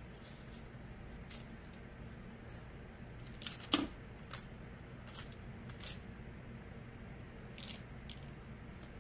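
Scattered light clicks and taps from small craft tools and pieces being handled on a work surface, with one sharper knock a little under four seconds in, over a steady low hum.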